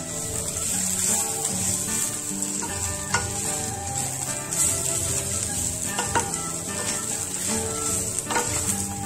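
Wooden spatula stirring and scraping crisp fried corn and onion around an oiled pan, with a steady sizzle of frying and a few sharp clicks of the spatula against the pan. Soft background music with held notes runs underneath.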